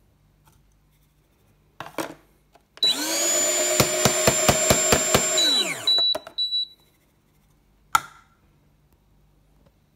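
AVX CG1 conical burr coffee grinder's motor spinning up, running for about three seconds with a rapid string of sharp knocks, and winding down. Short clatters come before and after it.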